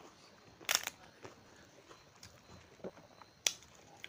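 Crisp fried papad being broken and eaten: about half a dozen short sharp crunches and clicks spaced roughly half a second to a second apart, the loudest a little under a second in.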